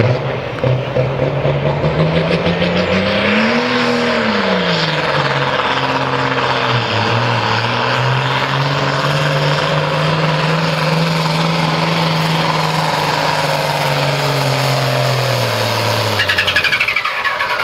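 Ford 9600 Pro Farm pulling tractor's turbocharged diesel engine running hard under load as it pulls a sled. Its pitch climbs and falls back about four seconds in, holds steady, then drops away near the end. The commentator hears one cylinder giving a little trouble.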